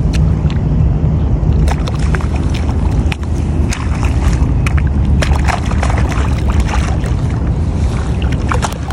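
A hooked stingray thrashing at the surface by the bank, with sharp splashes scattered throughout, over a steady, heavy low rumble like wind buffeting the microphone.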